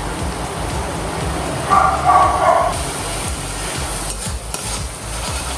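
Flat steel spatula stirring and scraping a thick spice paste frying in oil in a steel karahi, with a low sizzle as the paste is cooked down. A short pitched whine stands out above it about two seconds in.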